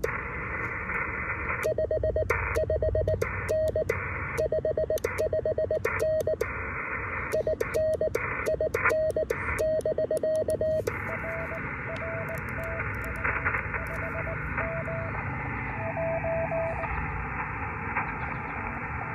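Morse code (CW) keyed on a Vibroplex brass paddle, heard as the SGC SG-2020 transceiver's steady-pitched sidetone, with the receiver hiss muting under each character. About eleven seconds in the sending stops and the receiver hiss comes up steadily, with a fainter station answering in Morse at a slightly different pitch.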